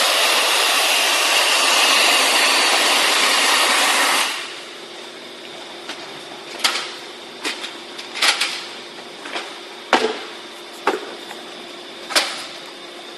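Compressed-air-driven wet/dry vacuum cleaner running with a loud, even rushing hiss that cuts off about four seconds in. A quieter steady hum remains, with a few sharp clicks and knocks.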